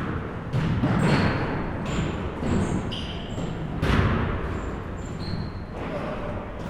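Basketball game in a gym: a basketball bouncing on the hardwood floor with a few sharp thuds, the strongest about four seconds in, with short high sneaker squeaks. The hall's echo and background chatter run underneath.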